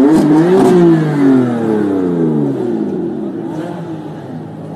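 BMW M4 convertible's twin-turbo straight-six revving hard as the car pulls away, then the engine note falls steadily and fades over the next few seconds.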